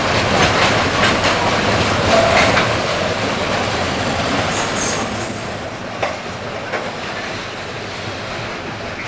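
Freight train of tank wagons rolling past, its wheels clattering over rail joints. A thin high wheel squeal runs from about halfway through, and the sound fades as the last wagon goes by.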